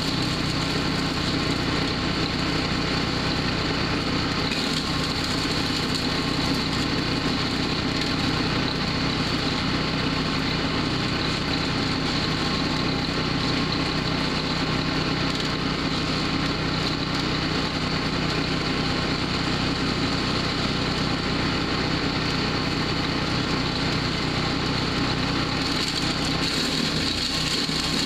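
Small gas engine of a Powerhorse wood chipper shredder running steadily at an even speed.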